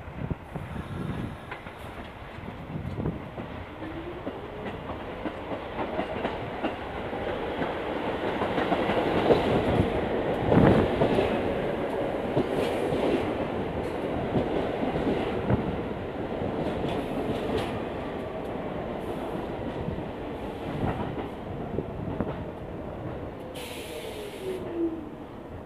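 Stainless-steel NYC subway train running in along the platform, its wheels clacking over the rail joints. It grows louder to its loudest about ten seconds in, with a sharp knock. A whine falls in pitch near the end as the train slows.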